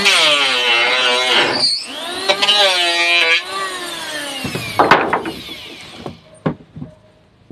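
Electric hand planer's motor and cutter head whining, with a falling pitch as it coasts down after the trigger is let go. It is run up again briefly and winds down a second time. About five seconds in there is a sharp knock, which fits the planer being set down on the wooden frame.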